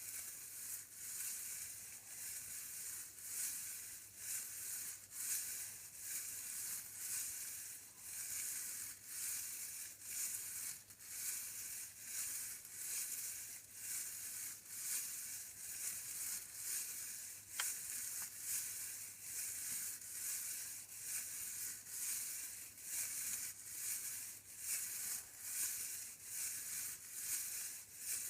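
A hissy rattling noise made by hand, pulsing in even waves about one and a half times a second, with one sharp click about two-thirds of the way through.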